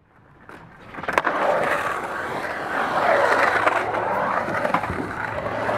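Skateboard wheels rolling and carving across a concrete bowl, a rushing sound that swells and eases as the board moves through the transitions. It fades in over the first second, with a sharp clack about a second in.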